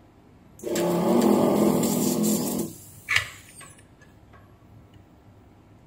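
Electric desoldering gun's vacuum pump running for about two seconds, sucking solder out of a MOSFET's through-holes on a power-supply board, then stopping, followed by one sharp click.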